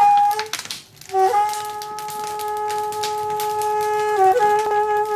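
Daegeum (Korean bamboo transverse flute) playing a short note, then from about a second in a long sustained note that dips briefly near the end before being held again. Crackling from the wood fire runs underneath.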